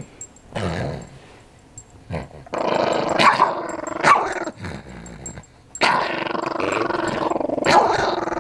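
Small dog hidden under a blanket growling in three bouts: a short one, then two long rumbling growls, each with a few sharp louder snarls as it snaps at a poking hand.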